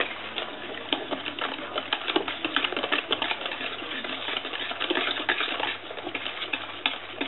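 Metal wire whisk beating pancake batter in a plastic mixing bowl: a fast, irregular clatter of wires against the sides of the bowl.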